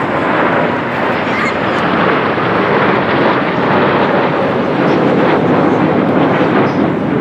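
Jet engine noise from a formation of six Kawasaki T-4 jet trainers flying overhead, each with twin turbofans: a steady rushing noise that grows a little louder after about two seconds.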